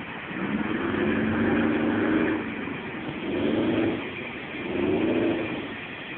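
A vehicle engine revving up in three swells, the first and longest about two seconds, the next two shorter, over a steady background din.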